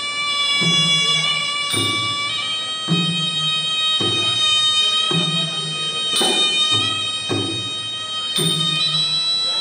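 Traditional Kun Khmer boxing music: a reed oboe (sralai) holds a long, high, wavering melody over drum strokes that fall about once a second.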